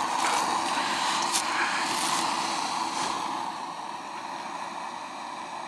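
Gas-canister camping stove burner running under a pot of water, a steady hiss that eases slightly after about four seconds, with a few short crackles.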